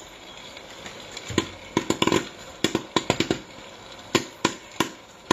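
Corn kernels popping in an Aicook electric popcorn maker under its plastic dome lid: a scattered, irregular run of sharp pops, quiet for about the first second and then coming thick and fast, over the machine's steady running noise.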